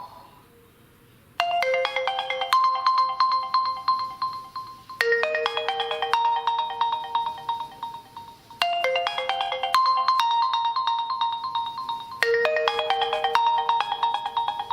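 Realme C3 stock ringtone: a short, quick melody of bright, bell-like notes that starts after a brief pause and plays four times, repeating about every three and a half seconds.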